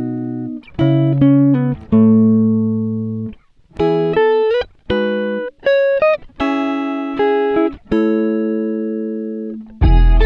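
Background music: plucked guitar chords, each ringing out and fading, with a fuller, louder passage coming in near the end.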